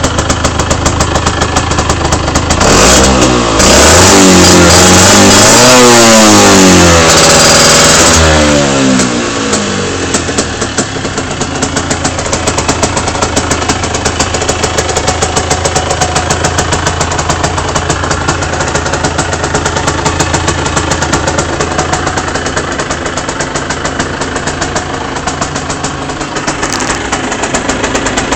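Aprilia RS 50's 50 cc two-stroke single-cylinder engine idling through an Arrow aftermarket exhaust. About three seconds in it is revved hard for about five seconds, its pitch climbing and falling several times, then it settles back to a steady idle.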